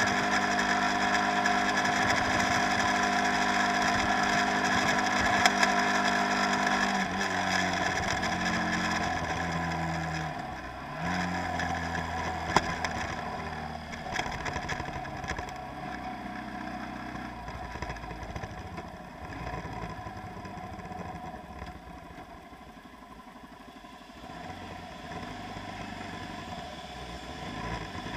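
An engine running steadily. Its pitch drops about seven seconds in and shifts again around eleven seconds, then it runs quieter before rising again near the end.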